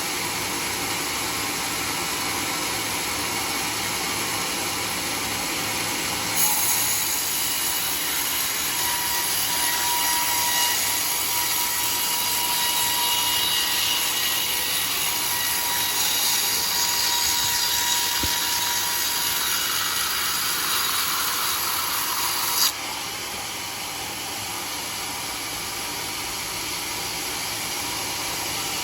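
Large sawmill saw cutting through a teak log: the machine runs steadily, then the cut starts about six seconds in with a higher, louder hiss and a steady whine, and ends abruptly about two-thirds of the way through, leaving the saw running.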